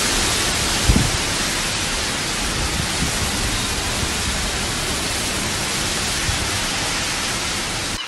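Hurricane wind and heavy rain, a steady dense hiss, with low gusts buffeting the microphone, the strongest about a second in.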